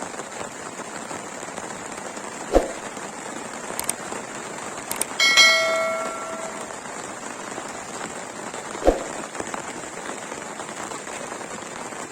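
Steady hiss of falling or running water. It is broken by two dull thumps and, about five seconds in, a single bell-like metallic ring that dies away over a second or so.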